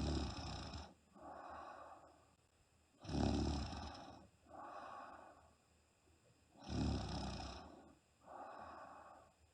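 A woman snoring in her sleep: three loud, rough snores about three and a half seconds apart, each followed by a softer breath.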